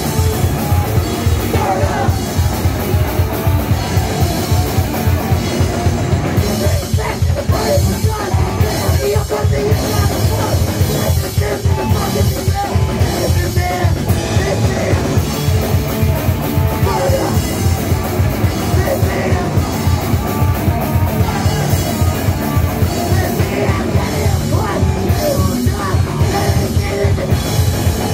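Punk rock band playing live at full volume, with a drum kit driving a fast, steady beat under the guitars.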